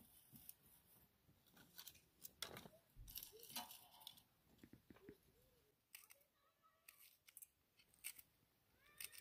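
Dry brush and straw rustling and crackling as it is pushed by hand into the fire opening under a cooking pot, in short crisp clusters. Near the end, a few soft clicks of a knife slicing green chillies.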